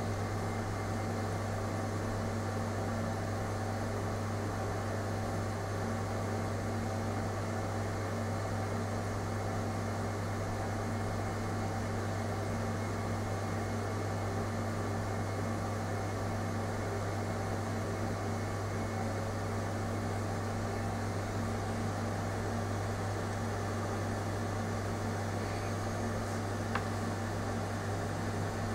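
Steady low machine hum over a constant hiss, with one small click near the end.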